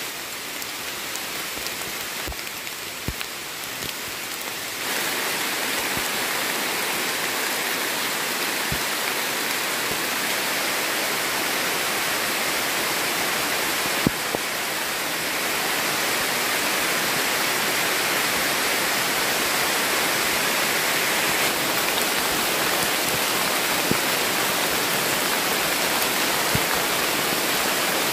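Steady heavy rain falling on rainforest foliage and leaf litter, with a few sharp drips now and then. The rain gets louder about five seconds in.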